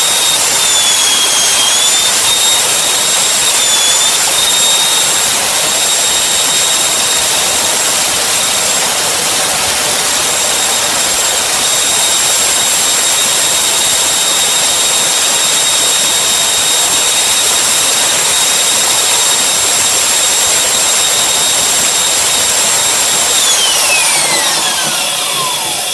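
Homemade mini lathe driven by a trigger-held electric power tool motor, running at high speed with a steady high-pitched whine while a chisel turns the workpiece; the pitch sags briefly twice in the first few seconds under the cut. Near the end the trigger is let go and the motor winds down, its whine falling steadily in pitch.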